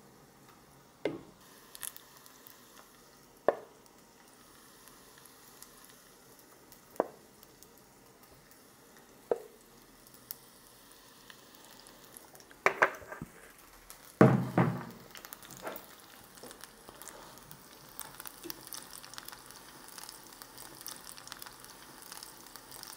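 Batter-coated vegetable sticks going into hot frying oil a few at a time, with a handful of sharp taps and clinks, the loudest about two-thirds of the way in. The oil's crackling sizzle builds over the last few seconds.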